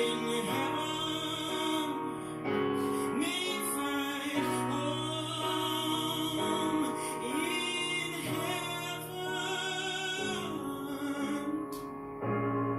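A male singer holding high, wordless notes that waver in pitch, over sustained piano chords.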